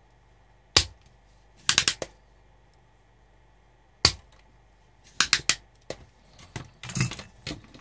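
Spring-loaded solder sucker (desoldering pump) being fired over solder joints, its plunger snapping back sharply about a second in and again about four seconds in, with clusters of shorter clicks between.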